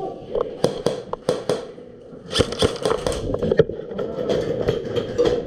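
Airsoft gunfire in a close-quarters game: sharp cracks and clicks in irregular strings. There is a short lull about two seconds in, then a denser run to the end.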